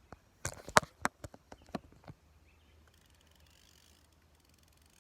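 A quick series of sharp knocks and clicks in the first two seconds, then faint, rapid, even ticking: an old fishing reel clicking as it is reeled in.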